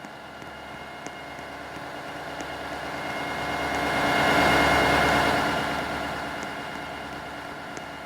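Freight train of BNSF double-stack cars rolling past. The rumble swells to a peak about halfway through and fades again, with a steady high ringing tone over it.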